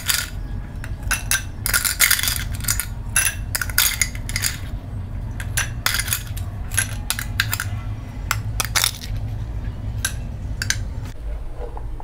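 Ice cubes clinking as they are scooped with a porcelain spoon and dropped into a glass tumbler: a rapid, irregular run of sharp clinks that stops shortly before the end. A steady low hum runs underneath.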